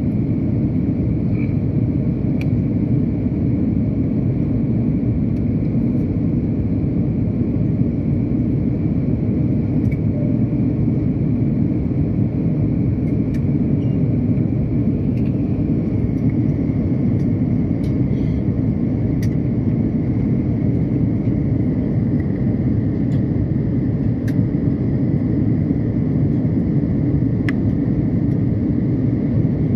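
Airbus A330-200 cabin noise in flight, heard from a window seat behind the wing: a steady deep rumble of the engines and airflow with a faint, steady high whine above it.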